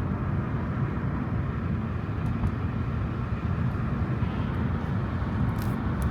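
Steady low rumble of vehicle noise, with a few faint clicks about two seconds in and again near the end.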